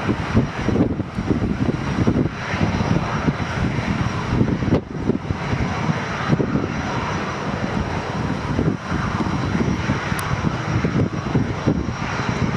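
Boeing 777-200LR's two GE90 turbofans at takeoff thrust as the airliner lifts off and climbs away: a loud, rough rumble that crackles and flickers in level.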